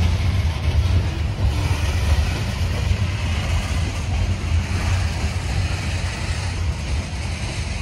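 Freight train of CSX hopper cars rolling past, a steady low rumble of wheels on rail.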